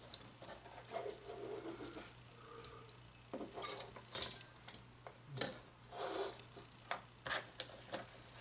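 Small plastic parts of a cordless phone being handled and fitted together: irregular clicks, taps and short rubbing sounds, with the sharpest clicks a little past the middle and near the end.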